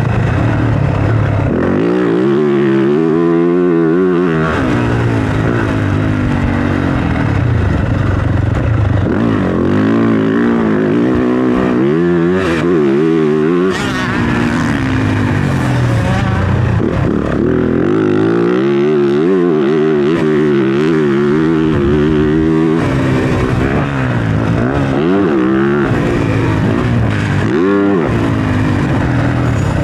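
Motocross dirt bike engine revving hard and easing off again and again, its pitch climbing and falling through the gears as it laps the track.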